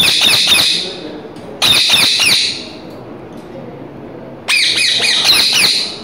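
Rose-ringed (Indian ringneck) parakeet squawking in three bouts of rapid, high-pitched repeated calls, each about a second long, with short pauses between.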